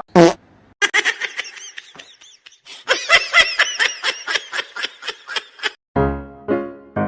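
High-pitched giggling laughter in two quick runs of short squeaky bursts, then a piano tune of evenly spaced notes starting about six seconds in.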